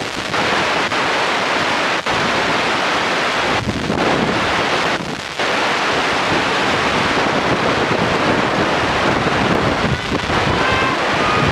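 Wind buffeting the camera microphone, a loud steady rush that dips briefly a few times. Near the end comes a short high-pitched call.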